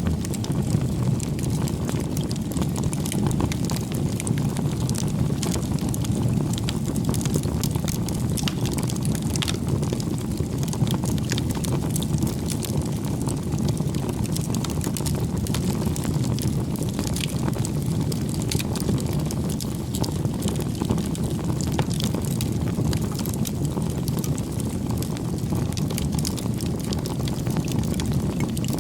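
Wood bonfire burning with a steady low rumble of flames and frequent small crackles and pops of burning wood.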